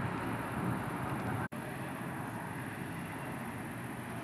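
Steady low rumbling outdoor background noise, cutting out for an instant about a second and a half in.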